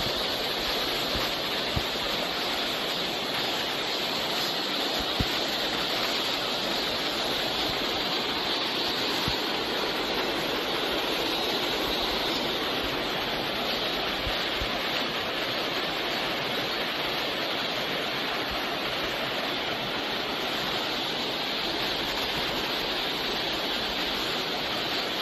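Shallow mountain stream rushing over a stony bed, a steady, even rush of water.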